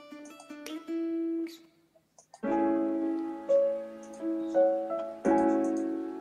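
Instrumental background music: short plucked notes, a brief break about two seconds in, then fuller sustained piano-like chords.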